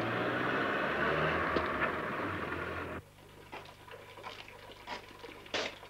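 A car engine running as it drives along a street, a steady hum that cuts off abruptly about three seconds in. Quieter scattered light taps and scrapes follow.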